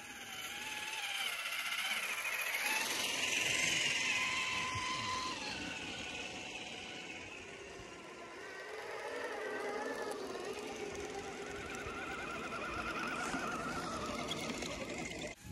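Electric motors and gearboxes of RC scale crawler trucks whining as they drive through deep snow, the pitch rising and falling with the throttle and swelling louder twice.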